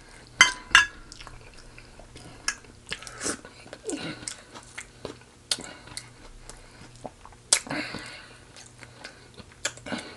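A person chewing and biting into fried chicken close to the microphone: irregular crunches, crackles and mouth clicks.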